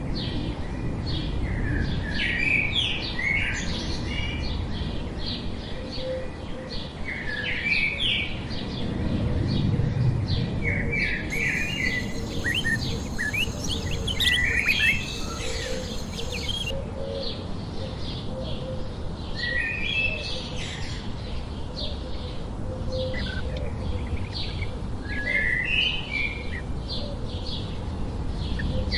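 Many birds chirping and calling in short, overlapping notes throughout, over a steady low background rumble.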